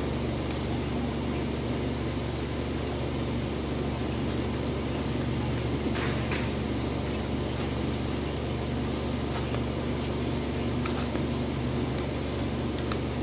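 Steady low mechanical hum throughout, with a few faint scraping clicks from a razor blade cutting a loudspeaker's paper cone.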